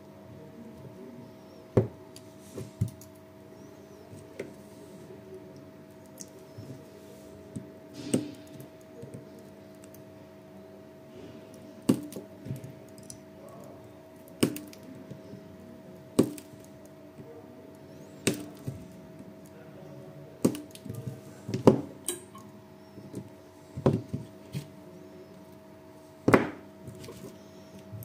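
Battery spot welder firing as nickel strip is welded to the pack's cells and circuit board: about a dozen sharp snaps, irregularly spaced a second or two apart, over a steady electrical hum.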